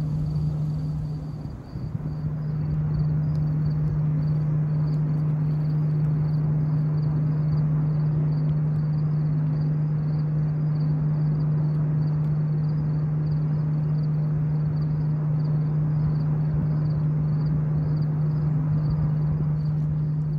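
A steady low hum that drops out briefly about a second and a half in, over a faint high-pitched chirping that repeats about twice a second.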